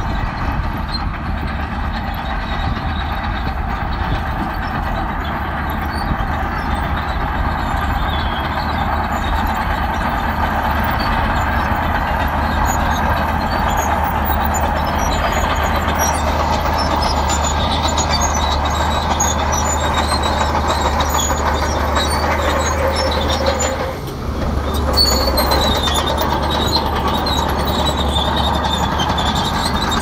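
Bulldozer's diesel engine running steadily under load, with a constant low hum and a spread of mechanical noise; it drops briefly about three-quarters of the way through, then picks up again.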